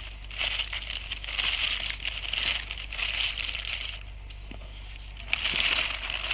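New fibreglass glass wool being handled and wrapped around a motorcycle silencer's inner tube, a dry crinkling rustle in repeated swells that eases off for about a second near the end before one more burst.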